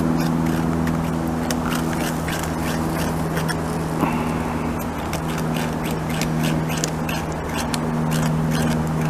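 North American beaver gnawing a tree trunk: an irregular run of crisp scraping clicks, several a second, as its incisors cut into the wood. Under it, a steady low mechanical hum.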